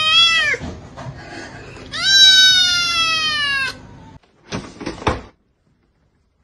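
Tabby-and-white kitten meowing loudly: the falling tail of one long meow, then a second long meow about two seconds in that slides down in pitch. A few short knocks follow about a second later.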